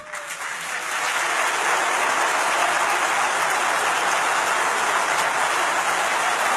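A large seated audience applauding, swelling over the first second and then holding steady.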